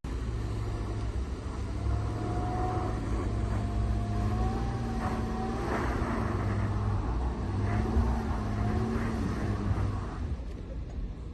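Audi Q7 engine running under load, its pitch rising and falling as it works, with a deep rumble; it eases off about ten seconds in.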